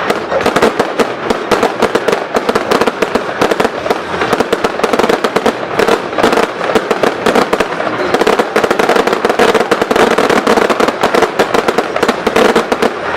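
Fireworks finale barrage: a dense, unbroken volley of sharp firework reports, many bangs a second with no pause.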